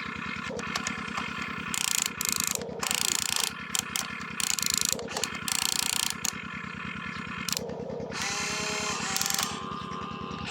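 Radio-controlled construction model working: a steady fast-pulsing engine-like drone, with repeated short bursts of hiss and whining gear and motor tones that glide briefly near the end.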